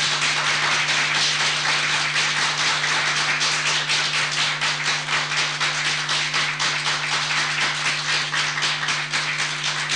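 Studio audience applauding: a dense patter of many hand claps, over a steady low hum.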